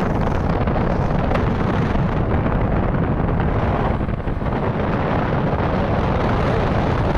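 Strong wind buffeting the microphone: a loud, steady rush of noise, mostly low-pitched.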